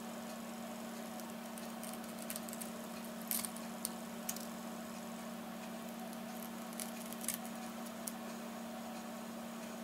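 Faint small clicks and light scrapes of a knife blade and tool on cracked glass as an iPad 2's broken digitizer glass is cut and pried loose. They come in two short clusters, around three and seven seconds in, over a steady low hum.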